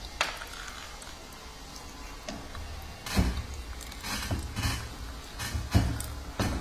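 Small electric screw oil expeller running while pressing seeds, with a low steady motor hum. Irregular clicks and knocks pick up about three seconds in as pressed seed cake is forced out of the barrel.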